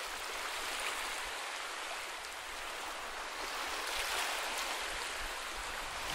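Ocean waves washing onto a beach: a steady rush of surf that swells and eases slightly every couple of seconds.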